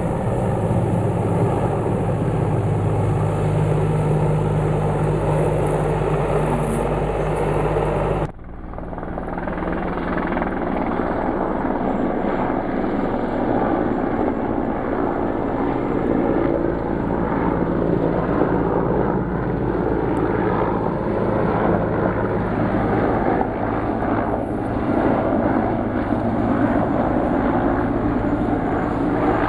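Bundeswehr CH-53 heavy transport helicopter flying overhead, its rotors and engines giving a loud, steady low hum. About eight seconds in the sound cuts off abruptly and picks up again with less of the low hum.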